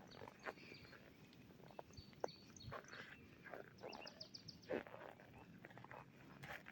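Faint calls of small birds: scattered short chirps, with a quick run of high ticking notes about four seconds in.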